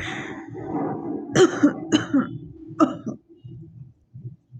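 A woman coughing hard and hawking to clear her throat: about four sharp coughs in the first three seconds, then quieter.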